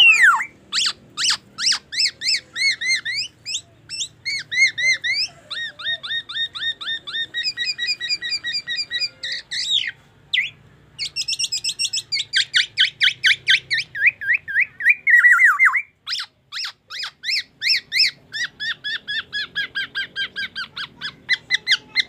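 Black-naped oriole singing a loud, fast song of rapid runs of repeated sharp notes that changes phrase every few seconds, its song laced with mimicked white-rumped shama phrases. There are brief breaks about ten and sixteen seconds in.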